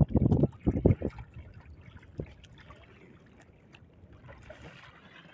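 Shallow seawater sloshing and lapping close to the microphone as someone wades, with a few loud low bursts in the first second, then soft trickling and lapping with small clicks.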